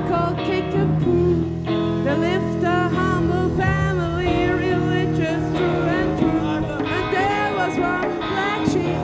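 A live rock band playing: electric guitar and drums with a voice singing over them.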